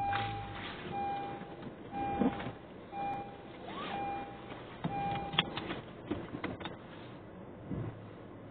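A car's interior warning chime beeping six times, about once a second, then stopping, with scattered clicks and knocks around it.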